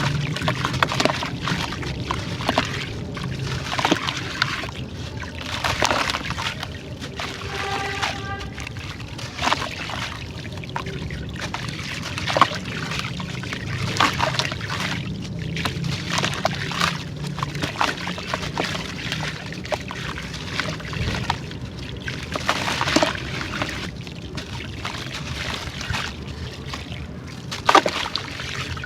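Crumbly sand-textured clay being broken up and dipped in water: irregular crunches and crackles with wet sloshing and dribbling, over a low steady hum.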